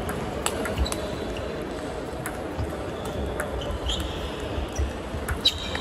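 Table tennis balls clicking off tables, paddles and floor in a sports hall: scattered, irregular ticks rather than the even back-and-forth of a rally, with a couple of short high squeaks near the middle and near the end.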